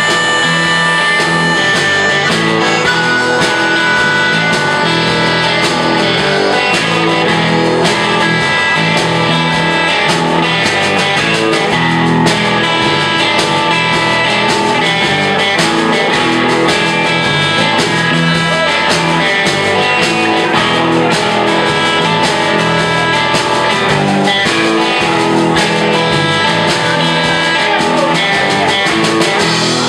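Live band playing a blues-rock number on electric guitars, bass guitar and drum kit, with a steady beat.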